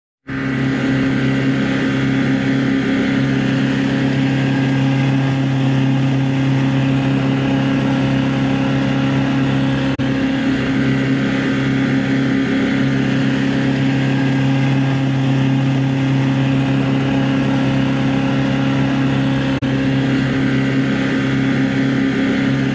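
The motor of a home-built water scooter running under way at part throttle, a steady drone that holds its pitch.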